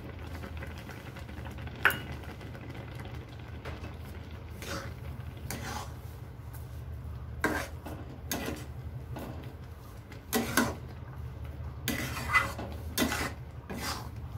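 Metal spoon stirring vermicelli simmering in milk in an aluminium kadai, scraping and knocking against the pan in irregular strokes. The strokes come more often in the second half, over a steady low hum.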